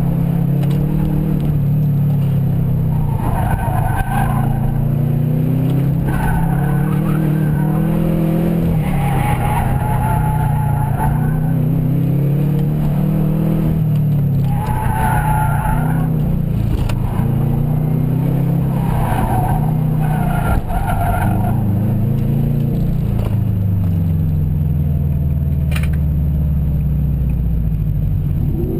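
A car engine, heard from inside the car, rising and falling in revs through an autocross course. Tyres squeal in five or six short spells through the corners. Near the end the revs fall away steadily as the car slows at the finish.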